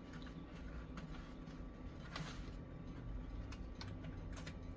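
Faint scattered taps and rustles of fingers pressing double-sided tape along the inside edges of a cardboard box.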